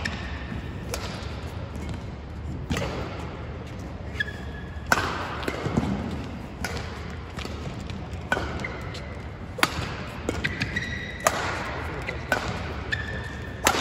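Badminton rally: sharp racket hits on the shuttlecock about every one to two seconds, each ringing in a large hall, with court shoes squeaking briefly on the court mat between shots.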